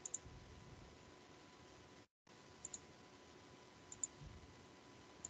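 Near silence with four faint double clicks spaced through it, and a brief dropout to dead silence about two seconds in.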